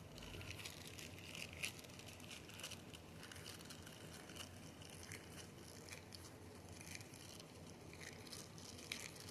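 Faint, scattered sticky crackles and soft squishing of small sticky fidget balls being squished together in the hands.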